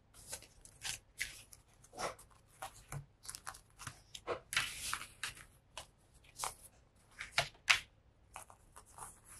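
Paper planner-sticker sheets being slid, shuffled and spread across a desk by hand: a string of short papery rustles and swishes, strongest about halfway through and again near three-quarters of the way.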